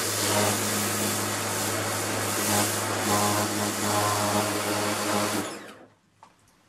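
Kärcher electric pressure washer running, a steady motor-and-pump hum under the loud hiss of the water jet spraying a plastic sun lounger. It stops abruptly about five and a half seconds in.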